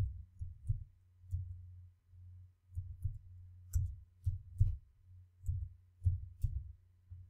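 Computer keyboard keys being pressed, about a dozen dull taps at an uneven pace, as numbers and plus signs are typed in one at a time.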